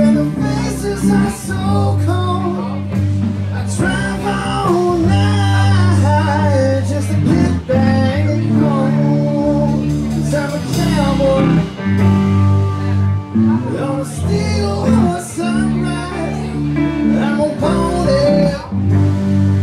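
Live rock band playing a blues-rock song: a male lead vocal over electric guitars, electric bass and drums.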